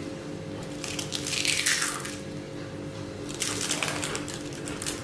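A crisp tomato-onion rava (semolina) dosa being torn apart by hand, crackling and crunching in two bouts, about a second in and again after three seconds; the crunch shows it has cooked fully crisp. Soft background music runs underneath.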